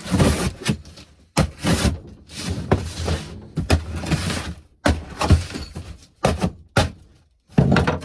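Cardboard box and packaging being opened and handled: a quick string of rustling, scraping and knocking noises.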